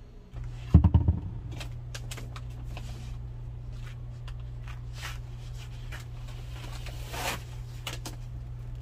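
Fingers raking and spreading dry ground chicken-breast powder on a dehydrator tray, making light rustles and scratchy clicks over a steady low hum. A short burst of quick knocks about a second in is the loudest sound.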